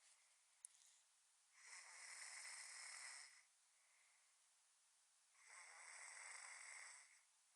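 Snoring: two long, breathy snores about four seconds apart, with a short click shortly before the first.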